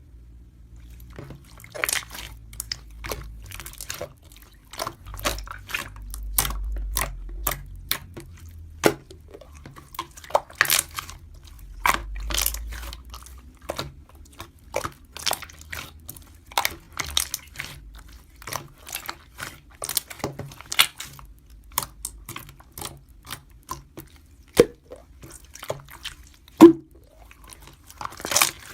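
Close-up, irregular crunching and wet clicking sounds, a few each second, with a faint low rumble underneath.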